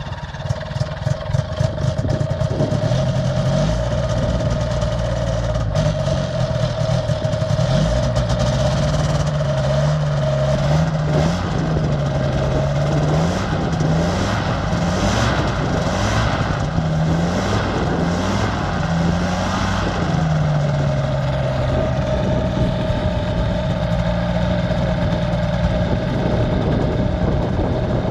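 Powered parachute trike's engine and caged pusher propeller running on the ground. It builds up over the first couple of seconds and settles into a steady idle, then its pitch rises and falls repeatedly through the middle as the throttle is worked, and it settles back to a steady idle near the end.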